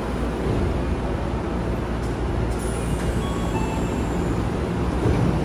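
Tokyo Metro 10000 series train's doors and the platform screen doors reopening and closing again over a steady station and train hum, with a short two-note falling chime about three and a half seconds in.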